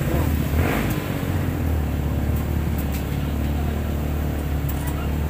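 A steady low engine hum, like a vehicle idling, with a few faint clicks over it.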